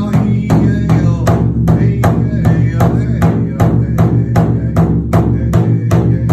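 Large powwow drum struck with a steady beat, about three strikes a second, in the rhythm of a Gourd Dance song. A man's singing voice is heard over the drum in the first second or so.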